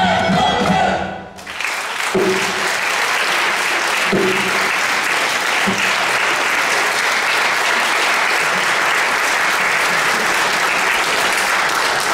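A folk dance tune with accordion ends about a second in, and the audience breaks into steady applause.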